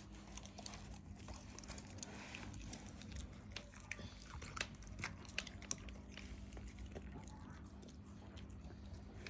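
A dog chewing and eating a sardine: faint, irregular crunching and mouth clicks.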